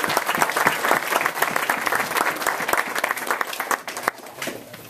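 Audience applauding, dense clapping that thins to a few scattered claps about four seconds in.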